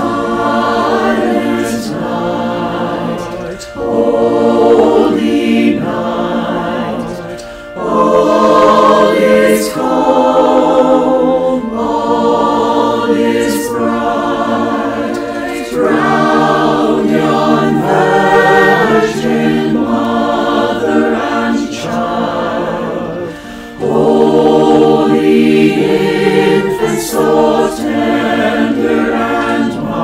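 Mixed men's and women's choir singing a Christmas carol in held phrases, with short breaks between phrases.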